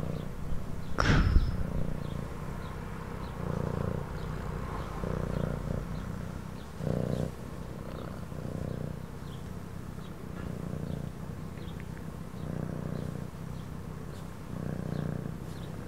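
Domestic cat purring, swelling and fading with each breath about every one and a half to two seconds. There is a short sharp sound about a second in.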